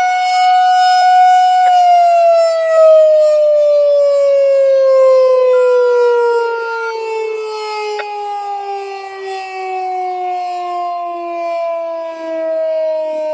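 Federal Signal 2001-130 electromechanical tornado siren holds its steady single tone, then winds down, the pitch sliding slowly lower after about two seconds: the siren is shutting off at the end of its test run. Its loudness wavers as the rotating head sweeps past.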